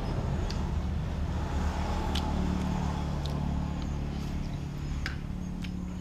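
Low, steady engine hum of a motor vehicle, slowly fading away, with a few light clicks.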